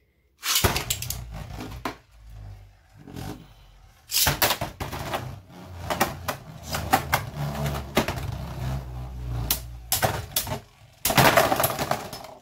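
Two Beyblade Burst spinning tops ripped from a ripcord launcher into a plastic stadium, whirring and clashing with repeated sharp plastic clacks. A loud collision about eleven seconds in is one top bursting apart.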